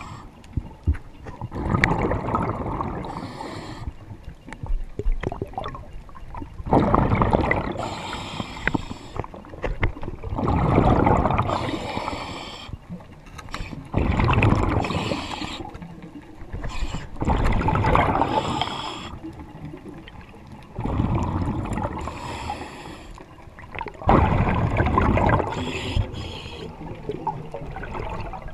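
Diver breathing through a regulator fed by a surface air compressor, heard underwater: bursts of exhaled bubbles burbling past, each lasting a second or two and coming about every three to four seconds.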